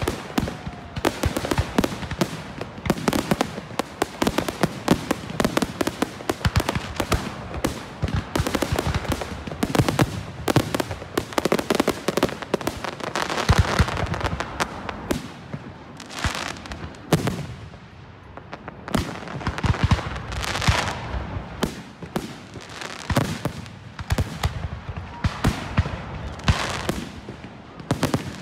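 Aerial fireworks going off in quick succession: a dense run of bangs and crackles, with a few longer crackling stretches in the second half.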